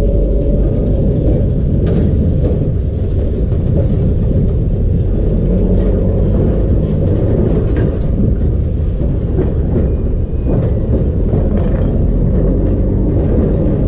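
Vintage Gråkallbanen tram rolling slowly over depot yard tracks, with scattered faint clicks over a dense, steady low rumble.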